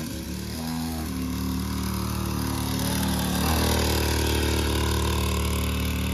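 Small kids' dirt bike engine running at a steady idle. About three and a half seconds in, the engine note dips briefly, then picks up again and holds steady.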